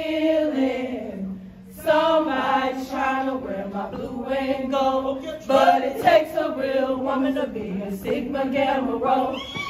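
A group of women chanting in unison, with a short break about a second and a half in.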